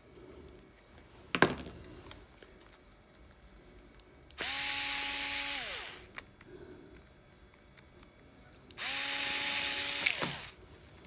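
Milwaukee cordless drill/driver run twice, about a second and a half each time, backing screws out of the carving knife's motor and drive assembly. Each run holds a steady whine and winds down as it stops. A single sharp click comes about one and a half seconds in.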